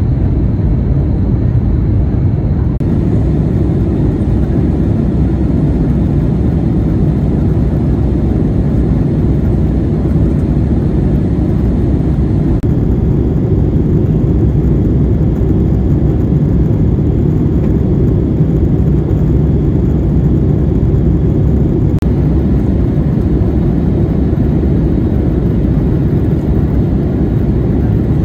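Steady, low cabin rumble inside an Airbus A321neo climbing out after takeoff: its Pratt & Whitney geared turbofan engines at climb power together with air rushing past the fuselage.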